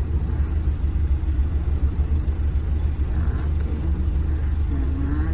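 Bus engine and road rumble heard from inside the passenger cabin as the bus drives along: a steady low drone.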